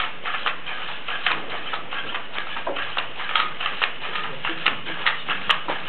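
NAO humanoid robot walking on a hard floor: a rapid, uneven run of small clicks and taps, several a second.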